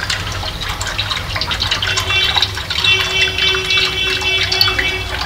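Water pouring into a cement fish tank as it is refilled, splashing and trickling. A steady high tone joins about two seconds in.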